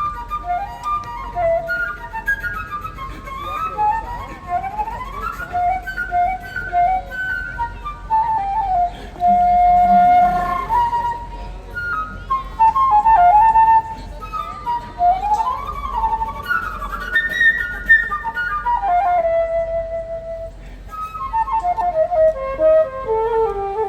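Flute playing a lively melody of fast rising and falling runs between held notes, closing near the end with a descending run onto a long low note.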